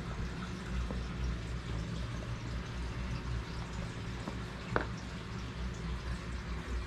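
Basset hounds chewing and licking at treats: close, wet mouth sounds, with one sharp click a little under five seconds in.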